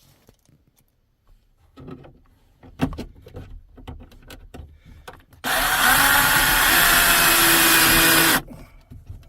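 Cordless screw gun driving a self-tapping screw into the sunroof latch, running steadily for about three seconds and stopping abruptly, after a few light clicks and knocks of the screw and latch being lined up.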